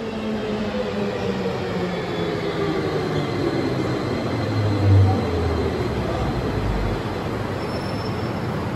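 Uijeongbu light-rail train, a rubber-tyred Siemens VAL 208, pulling into the station: its motor whine falls in pitch as it brakes, with a low rumble loudest about five seconds in before it settles to a steady hum.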